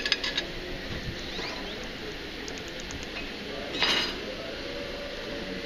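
Metal clinks from the stainless-steel roll-top lid of a buffet chafing dish being handled: a quick run of small clinks at the start, a few faint ticks, and a short clattering rush about four seconds in, over a steady room hum.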